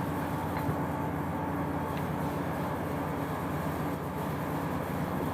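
Steady low mechanical hum of a machine running, with a couple of faint light ticks.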